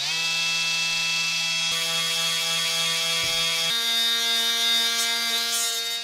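Ryobi oscillating multi-tool with a P240 detail-sanding pad running against the steel handle of a nutcracker: a steady buzzing hum with sanding hiss. Its pitch steps up a little over halfway through.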